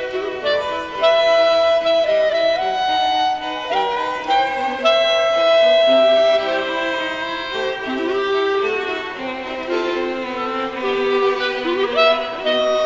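Two bowed string instruments of the violin family playing a waltz in two parts: a melody over lower sustained notes, with a few sliding notes.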